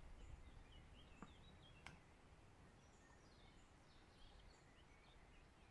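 Near silence: faint outdoor ambience with scattered faint bird chirps and one faint click about two seconds in.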